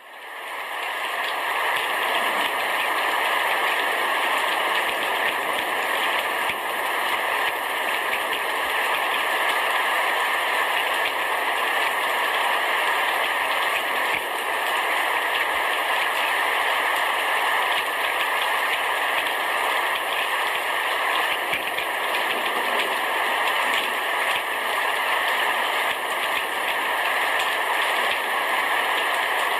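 Heavy rain pouring steadily on a roof, a dense even hiss that swells up over the first second or two and then holds level.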